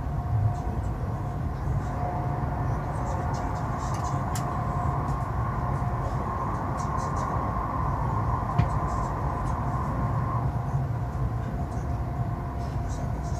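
Running noise of a CRH high-speed train heard inside the cabin: a steady low rumble with a faint, even whine over it.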